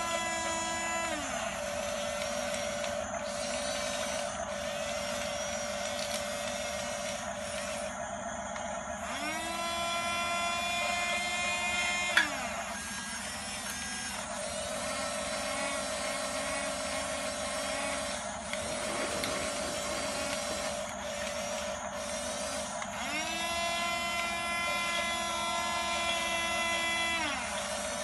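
Small electric motors of a radio-controlled toy bulldozer whining over a steady high hum, spinning up in spells of a few seconds and winding down again, with a sharp click about twelve seconds in.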